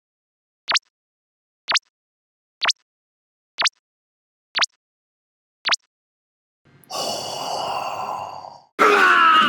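A short, sharp click about once a second, six times, stopping about six seconds in; then a long breathy sigh, and near the end a louder vocal cry with a wavering pitch.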